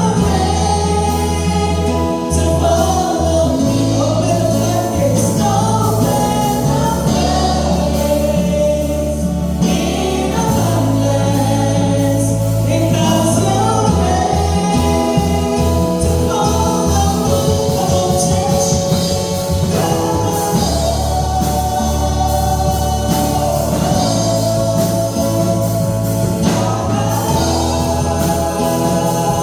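Gospel choir singing with instrumental accompaniment over sustained bass notes.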